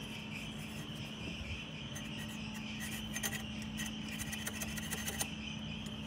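Light clicking and rubbing of wires and small parts being handled in a steering column, strongest in the middle. Under it run a steady cricket chirr and a low hum.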